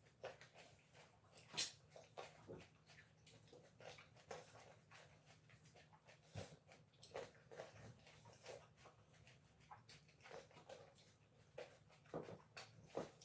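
Faint, irregular clicks and smacks of people chewing grapes fast, with a sharper click about a second and a half in and a few more near the end.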